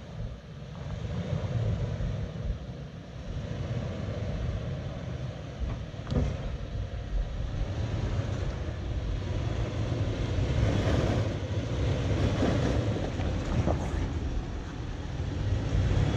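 Toyota 4Runner's engine running at low speed as the SUV crawls over boulders, with tyres working on rock and a sharp knock about six seconds in. It grows louder toward the end as the truck comes close.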